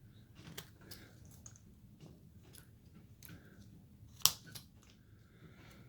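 Carving knife making short cuts in basswood: a scatter of small, irregular slicing and scraping sounds, with one sharp click about four seconds in.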